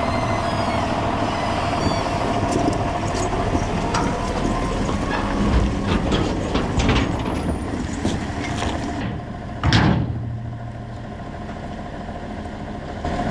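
A farm machine's engine running steadily, with repeated clanks and knocks over it for most of the stretch. A short sharp hiss comes about ten seconds in, and after it the engine hum is lower and quieter.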